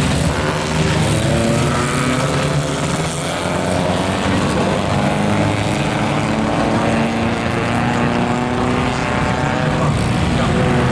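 Several pre-war race car engines running at once as the cars drive past on the track, their pitch rising and falling as they accelerate.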